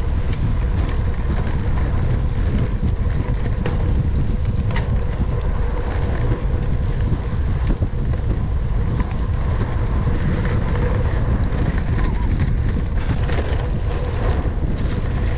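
Wind rumbling on the camera microphone as a gravel bike rides fast over a dirt track strewn with leaves, with tyre noise and scattered short knocks and rattles from the bike over bumps.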